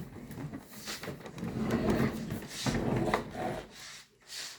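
Rubbing and scraping of things being handled, in several uneven swells, with a sharp knock at the start.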